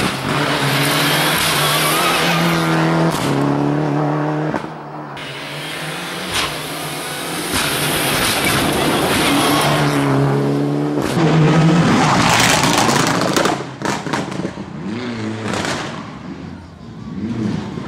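Rally car engine accelerating hard, its pitch climbing and dropping back at each gear change, heard on two separate runs. Rougher, uneven engine and tyre noise follows near the end.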